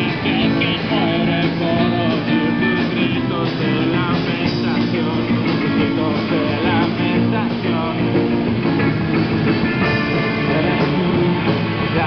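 Live rock band playing: electric guitars through amplifiers, with bass and drums.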